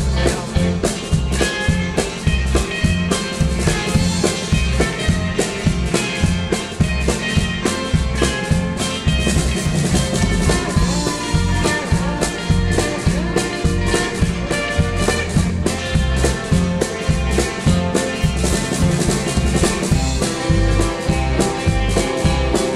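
Live rock and roll band playing an instrumental passage without vocals: electric guitar over bass, piano and a steady drum beat.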